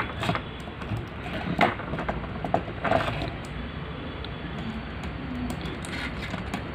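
Cutting pliers snipping off excess component leads on a circuit board: a few sharp clicks, the loudest about a second and a half and three seconds in, over a steady low background noise.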